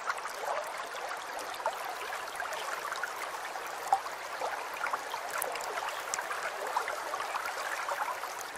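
Running water babbling and trickling steadily, like a small stream.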